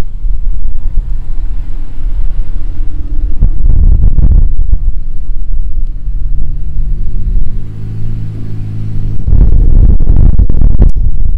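Lowered cars, a Subaru Impreza WRX STI and then a Mitsubishi Lancer Evolution X, rolling past slowly one after another, with a deep exhaust rumble. A steady engine note sounds in the middle, and the rumble swells as each car comes close.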